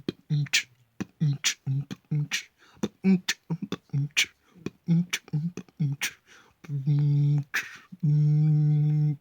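A person beatboxing with their mouth: a quick rhythm of sharp clicks and short low voiced beats, then two long held voiced notes near the end.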